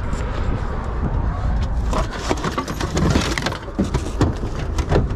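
Pickup truck driving with a load of goods: a steady low road-and-engine rumble with frequent clicks and knocks of the load rattling.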